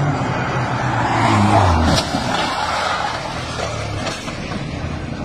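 A car driven fast past close by: the engine note drops as it goes and the tyre noise swells and fades. There is a single sharp knock about two seconds in.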